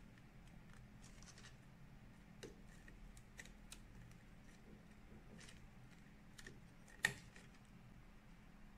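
Faint clicks and rustles of flat ribbon cables being handled and pushed into connectors on a printer circuit board, with one sharper click about seven seconds in, over a faint steady hum.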